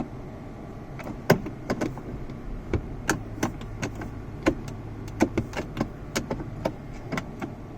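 Irregular light clicks and knocks from hands working at the gear shifter and console parts inside a car's cabin, over a low steady hum.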